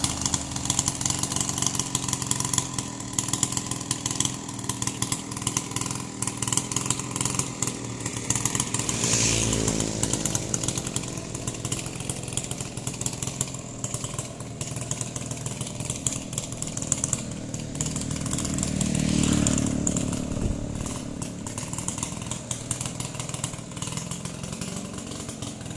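Gasoline chainsaw running while cutting up a felled tree, its engine note steady with a short rise and fall about nine seconds in and a louder stretch around nineteen seconds.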